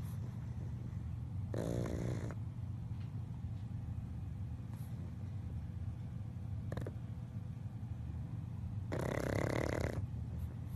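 A pug snoring in its sleep: a steady low breathing rumble, with two louder snores, one about two seconds in and one near the end.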